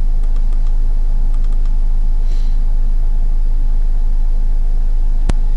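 Steady low hum from the recording setup, with a few faint clicks of a computer mouse early on and one sharp mouse click near the end.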